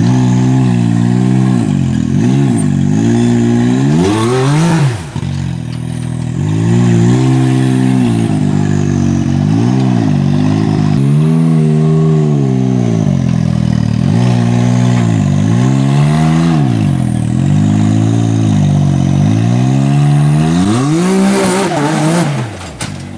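A side-by-side UTV's engine revving up and down again and again as the driver works the throttle on a rock climb, with a high rev that cuts off about five seconds in. Noisy clattering comes in near the end.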